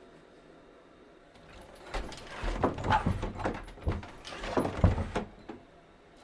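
Metal clanking and knocking in a blacksmith's workshop: a burst of dense clanks and low thumps lasting about three seconds, in two bunches, rather than a steady hammer rhythm on the anvil.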